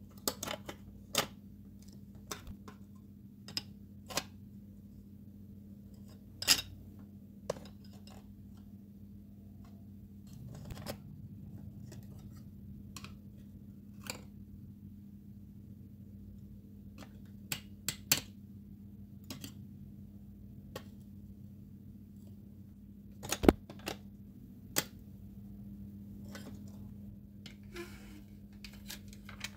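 Small tools and metal parts of a die-cast model car clicking and tapping on a work surface, a single sharp click every second or two, with a few louder knocks, over a steady low hum.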